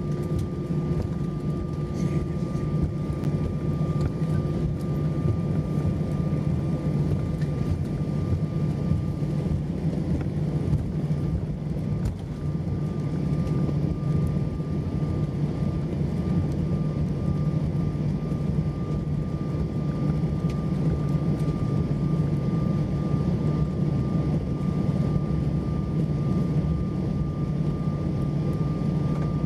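Cabin noise of an Airbus A320-232 on the ground after landing: its IAE V2500-series engines running at idle, a steady low hum with a thin steady whine over it, heard from a window seat over the wing.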